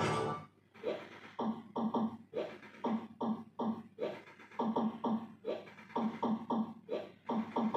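Cirsa Piratas del Caribe slot machine's electronic sound effects as the reels spin: a quick run of short pitched blips, about three a second, starting about a second in.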